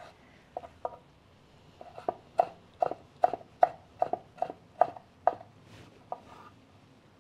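Kitchen knife dicing tomatoes on a wooden cutting board: sharp knocks of the blade striking the board, a couple at first, then a steady run of about two to three chops a second from about two seconds in, growing fainter near the end.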